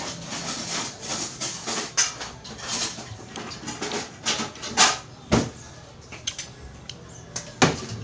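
Clam shells clicking and scraping against a glass plate as fingers pick through them, a quick run of small clicks and rustles with a few sharper knocks about five seconds in and near the end.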